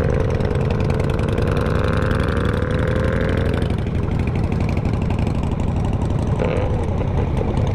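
Honda Africa Twin CRF1000L DCT's parallel-twin engine running steadily under way, with a tone that climbs in pitch over the first three or four seconds as the bike accelerates.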